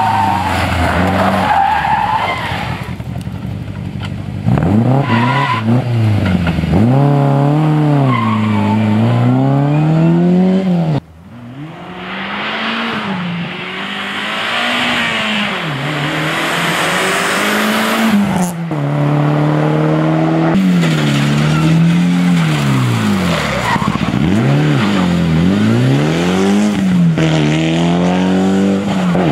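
Rally cars driven hard through bends one after another, engines revving high and dropping away again and again as the drivers lift off and shift gears. The engine note breaks off and changes suddenly a few times as one car gives way to the next.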